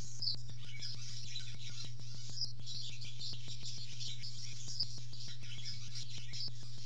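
Barn swallow twittering: many short, high chirps in a continuous chatter, over a steady low electrical hum with a fast run of faint ticks.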